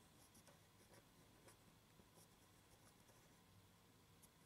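Faint, short scratching strokes of drawing on paper, scattered irregularly over a quiet room hum.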